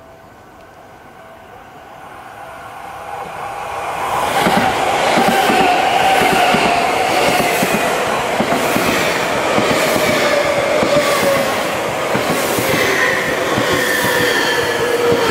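Seibu 6000 series electric commuter train approaching and passing close by. A rumble builds for about four seconds, then becomes loud: a rhythmic clatter of wheels over the rail joints under a motor whine that slowly falls in pitch.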